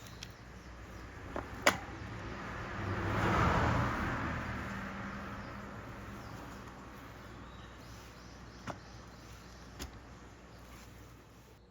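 A vehicle passing by, swelling to a peak about three seconds in and fading slowly away, with a few sharp clicks.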